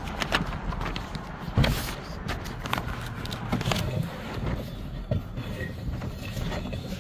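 Walking outdoors on concrete: scattered footsteps and short knocks, about one a second, over a low steady rumble.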